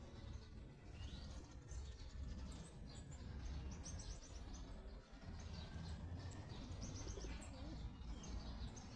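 Small birds chirping and twittering, with short high calls, rising and falling glides and a quick run of repeated notes about three seconds in, over a low steady rumble.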